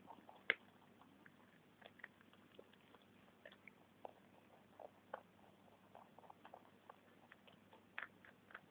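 Rabbits chewing broccoli from a bowl: many small, irregular crunches and clicks, with a sharper click about half a second in and a few more near the end.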